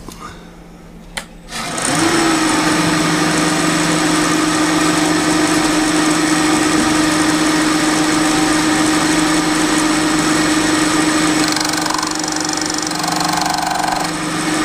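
A click, then a milling machine's spindle starts with a short rising whine and runs steadily as the end mill takes a full-depth cut across the milling vise body.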